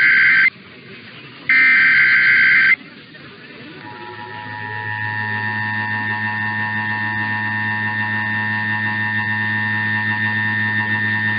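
Emergency Alert System SAME header data bursts: the end of one and then a whole second screechy warbling burst of about a second, followed by the EAS two-tone attention signal. After a short pause, that steady two-note tone fades in and holds. This is the opening of a required monthly EAS test heard over a radio broadcast.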